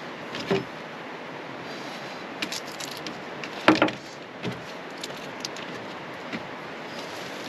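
Scattered small clicks and knocks of hands working a red onion with a knife over a plate, the loudest knock a little under four seconds in, over a steady low hiss.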